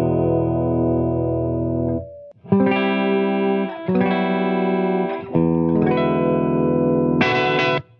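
Electric guitar played through a compressor pedal. A long sustained chord rings for about two seconds and stops, then comes a run of shorter chords about a second each, and a brighter, higher chord near the end cuts off suddenly.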